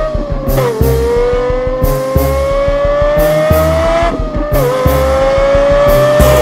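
A race car engine accelerating through the gears: its pitch climbs steadily and drops sharply at each upshift, about a second in and again near four and a half seconds. Underneath runs a hip-hop beat with heavy bass kicks and fast hi-hats.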